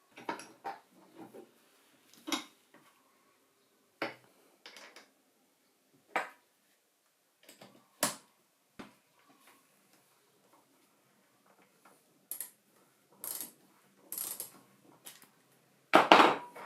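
Scattered clicks, clinks and knocks of small metal parts and hand tools being handled and set down on a work surface, spaced a second or two apart, with a louder clatter near the end.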